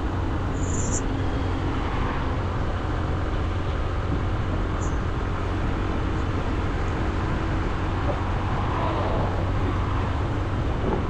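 Honda CB125F's single-cylinder 125cc engine running at a steady speed while riding, under a steady rush of wind noise on the microphone.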